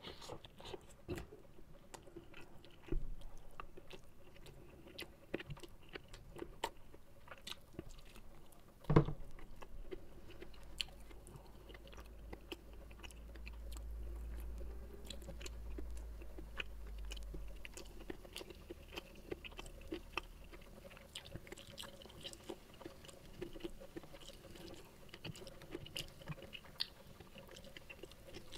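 A person chewing and eating rice and side dishes by hand, with many small mouth clicks. A single sharp knock about nine seconds in is the loudest sound.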